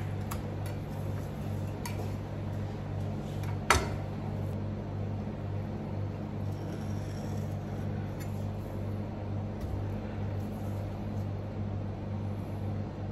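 A kitchen knife knocking and clicking against a cutting board as salmon is cut. There are a few sharp clicks, the loudest about four seconds in, over a steady low machine hum.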